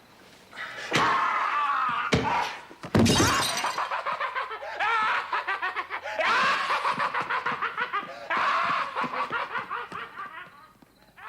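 A few sharp crashes, the loudest like something breaking about three seconds in, followed by several seconds of rapid, pulsing laughter.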